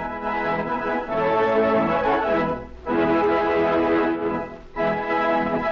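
Instrumental opening theme music of a 1939 radio serial: sustained chords, with two short breaks between phrases, about two and a half and four and a half seconds in.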